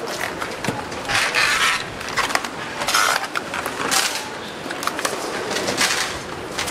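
Factory-floor handling noise on a tablet assembly line: irregular clicks, knocks and clatter of parts and tools, with several short hissing bursts, one lasting most of a second about a second in.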